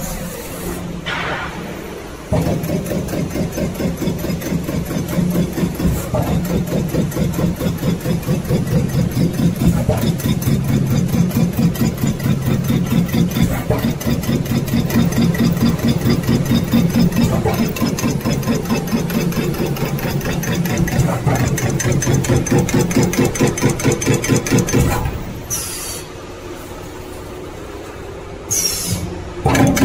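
CNC turret punch press punching sheet metal, a fast even run of hits several strokes a second that starts suddenly about two seconds in. Near the end the punching pauses briefly, with a couple of short sharp sounds, then starts again.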